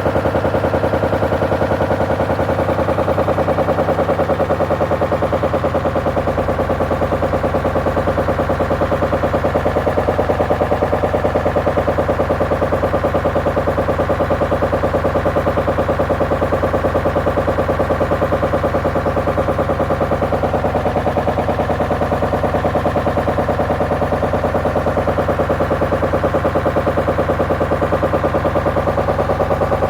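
Hoover washing machine with wood loaded in the drum, running on its spin cycle: a fast, steady hammering of rapid knocks over a constant machine hum.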